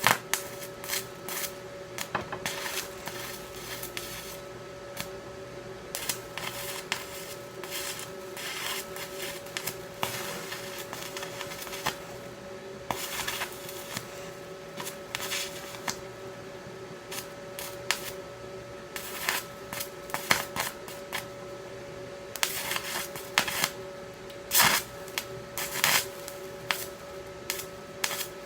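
Stick-welding arc crackling and spitting in irregular bursts as a cast steel rod runs at low current on thin, rusted chair metal, over a steady hum.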